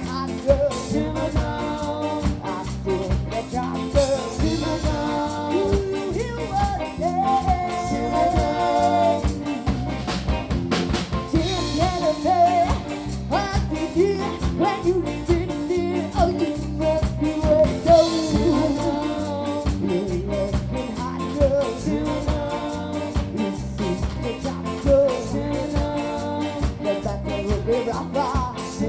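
Live ska band playing an upbeat song with a drum kit keeping a steady beat.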